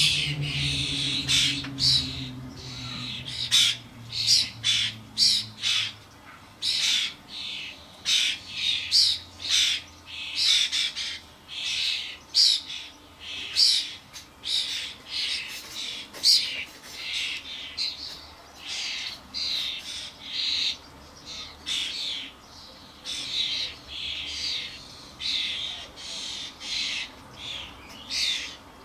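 A flock of European starlings, including fledglings, calling constantly at a feeder: harsh, raspy squawks repeated about once or twice a second, typical of young starlings begging to be fed.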